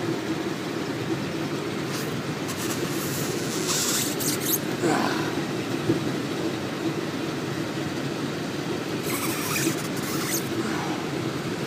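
Knife blade cutting through thick ribbed rubber belting in a few scraping strokes, about two seconds in and again near the end, over a steady machinery hum.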